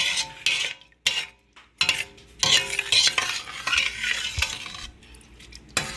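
Spoon stirring and scraping freshly added rice through the tomato-and-oil base in a cooking pot, in irregular strokes with a brief pause about a second in.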